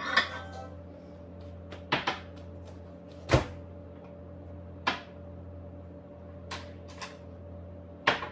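A clack at the over-range microwave, then a series of short sharp knocks and clinks as the ceramic parts of a Pampered Chef microwave egg cooker are set down and handled on the counter, the loudest about three seconds in. A steady low kitchen hum runs underneath.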